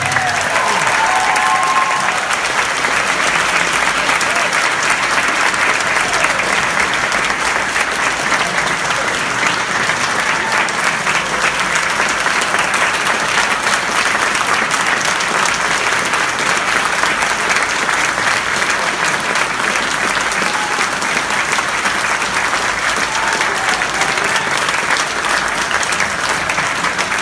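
Large audience applauding steadily, with voices calling out over the clapping.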